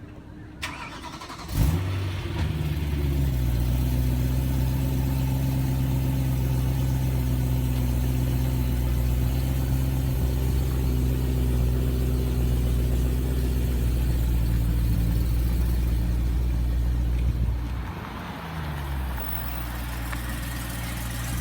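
A car engine is started: it fires about a second and a half in with a brief flare of revs, then settles into a steady idle. Near the end the engine note drops and shifts before it steadies again.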